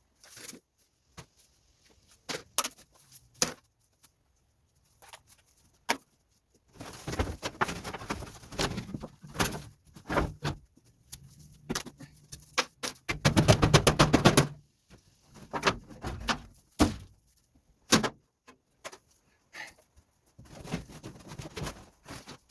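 Scattered sharp knocks and clicks, with two stretches of rapid rattling clatter, the loudest about thirteen seconds in and lasting a second and a half.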